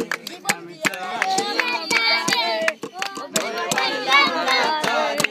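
Two thin sticks beaten in a quick rhythm on a plastic water bottle used as a makeshift drum, with a young voice singing along from about a second in.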